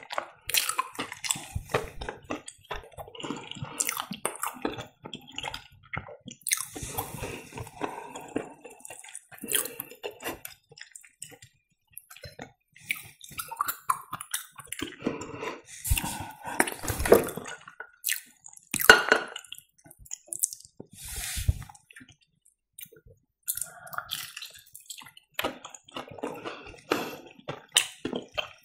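Close-miked chewing of stretchy breaded fried cheese: wet, squishy mouth sounds and small bites in irregular bursts, with a couple of short pauses.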